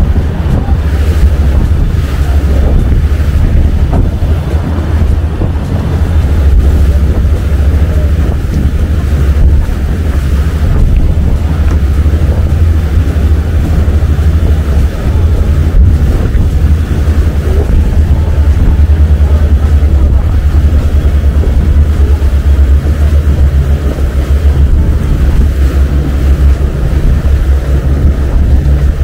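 Steady, loud wind noise buffeting the microphone aboard a small motorboat under way at sea, over the sound of water rushing past the hull and the boat's engine.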